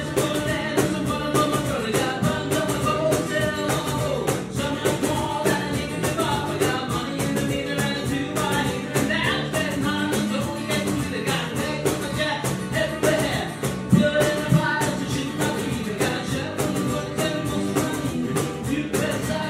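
Rock band playing with singing over electric guitars, bass and drums, with a steady beat.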